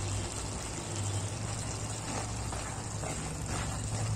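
Broad bean curry frying in a kadai: a steady sizzling hiss over a low hum. Near the end comes the faint scrape of a spatula stirring the beans.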